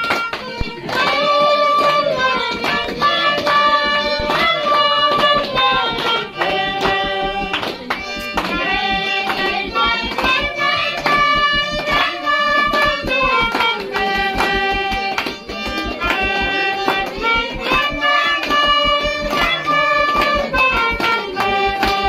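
Andean folk tune played on a violin and a flute, with a group of people clapping steadily in time.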